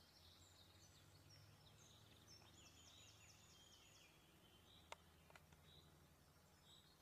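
Faint outdoor birdsong: scattered high chirps and a quick repeated trill over a low steady hum, with two faint clicks about five seconds in.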